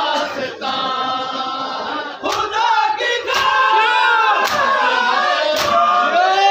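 Large group of men chanting a mourning lament in unison, with open-hand strikes on bare chests (matam) landing together. The strikes become loud about two seconds in and fall in a steady beat, about once a second.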